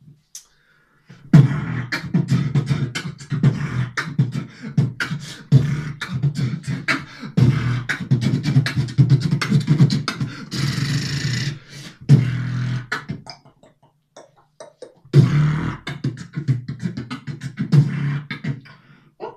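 Human beatboxing into a handheld microphone: rapid vocal kick drums, snares and clicks over a low buzzing bass line. A long hiss sounds just past halfway, and the rhythm thins out briefly about two-thirds through before starting up again.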